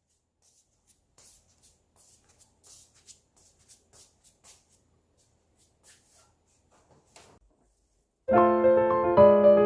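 Faint scattered clicks and small handling noises, then piano background music comes in about eight seconds in with chords and a melody.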